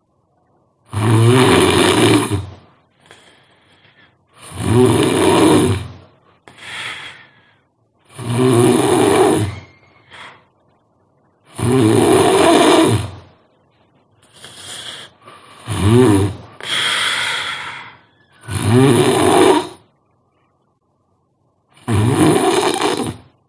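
A sleeping person snoring loudly: seven long snores spaced about three to four seconds apart, with a few shorter, softer snorts between some of them.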